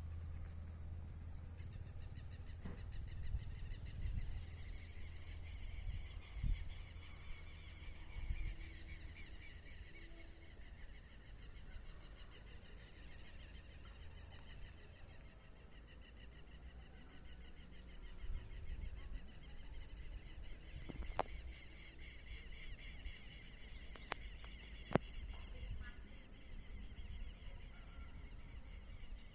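Outdoor nature ambience of birds calling and insects trilling, a dense, continuous pulsing chorus with a steady high band above it. A low rumble fades out in the first third, and a few sharp clicks come near the end.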